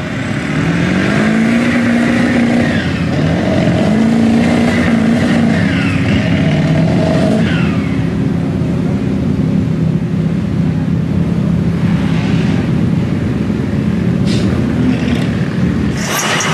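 Lifted mud truck's engine revving hard while bogged in deep mud. It rises in pitch in two surges in the first few seconds, then holds at a steady high run.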